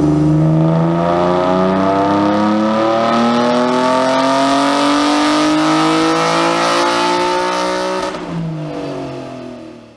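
Ford SVT Contour's cammed 3.0-litre V6, breathing through headers and a full exhaust, in a wide-open-throttle pull on a chassis dyno. The engine note rises steadily for about eight seconds under load, then the throttle is lifted and it winds down and fades near the end.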